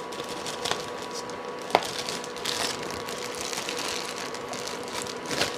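Plastic zipper bag crinkling and rustling as chicken pieces are dropped into a flour mixture and shaken to coat them, with a single sharp tap about two seconds in.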